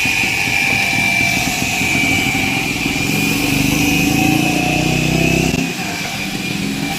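A motor running with a steady high whine; a lower, engine-like hum swells in the middle and cuts off sharply about five and a half seconds in.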